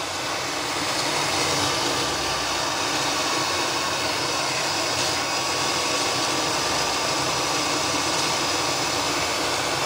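BWD5-40 stainless steel variable-speed booster pump running hard, drawing about 1.35 kW while pushing about 5,000 litres an hour at 4 bar, with water rushing through the pipework. A steady rushing noise with a faint high whine, swelling slightly over the first second or two, then holding level.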